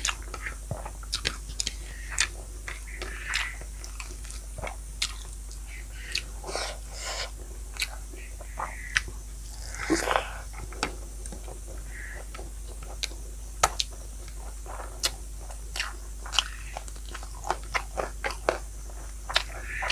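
A person chewing and biting crunchy food close to the microphone: irregular crisp crunches and wet mouth clicks and smacks.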